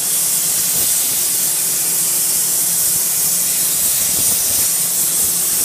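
CNC plasma cutter's torch cutting through metal plate: a loud, steady hiss of the plasma arc and gas jet, with a faint low hum underneath.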